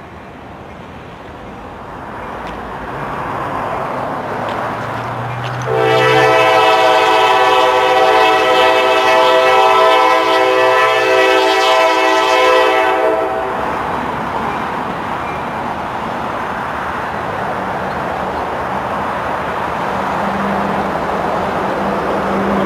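Diesel locomotive approaching, growing louder, then sounding its multi-chime air horn in one long blast of about seven seconds that starts about six seconds in. After the horn the locomotive's engine and wheels carry on, slowly getting louder as it nears.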